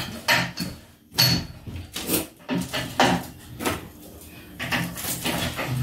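Irregular knocks and clatter of a bicycle being lifted and set onto a camper's bike rack, metal frame and rack parts bumping together.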